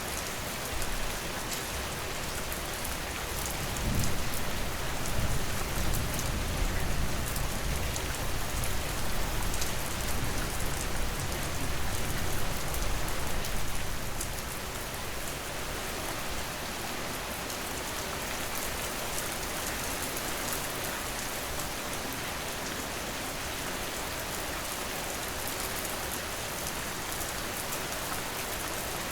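Steady rain, an even hiss of drops falling on surfaces. A low rumble swells in about four seconds in and dies away by about fourteen seconds.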